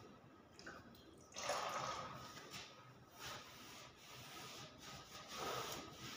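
Cloth rubbing liquid wood stain onto a carved wooden door panel: a series of wiping strokes, the loudest about a second and a half in and again near the end.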